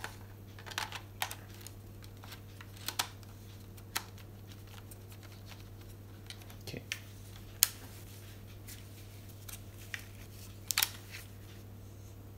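Handling of a Canon DSLR body, a cheap macro extension tube and a 50 mm lens as they are twisted together on their bayonet mounts: irregular sharp clicks and light knocks, the sharpest about seven and a half seconds in and a quick cluster near the end. A steady low hum runs underneath.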